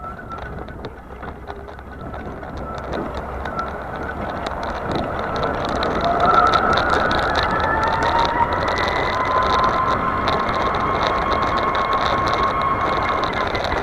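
Electric drive motor of an S12X Vita Monster mobility scooter whining as the scooter picks up speed. The whine rises in pitch from about six seconds in and then holds steady, over rolling tyre noise with many small crackles.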